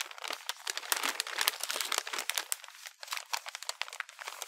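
Wrapping paper crinkling and crackling in a dense run of crisp rustles as it is folded and taped around a small present.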